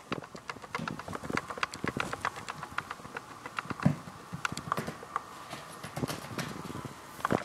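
Kittens' paws and claws scampering on a wooden floor: a quick, irregular patter of clicks and taps, with a heavier thump about four seconds in as one pounces.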